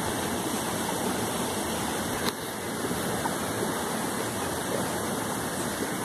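Steady rushing of a waterfall and river.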